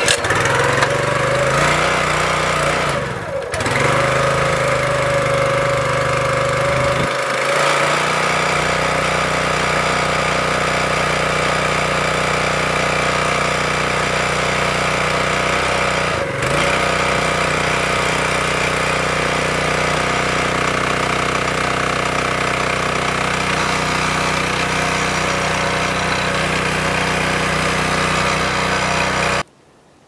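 Small gas engine of a log splitter catching and running on its first start after sitting all winter; it falters briefly about three seconds in, changes its note a few seconds later and dips once more before settling into a steady run. The sound cuts off suddenly just before the end. It seems to be ready for another season of splitting.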